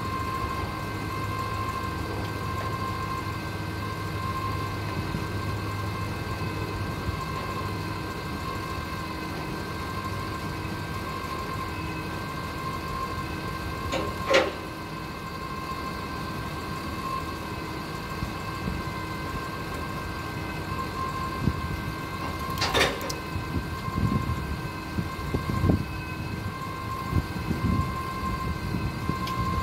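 Propane forklift engine idling steadily with a constant high whine. Two sharp knocks come about 14 and 23 seconds in, with scattered lighter knocks near the end.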